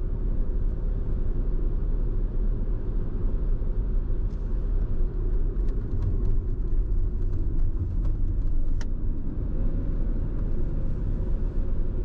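A car driving at a steady speed: an even road and engine rumble heard from inside the car.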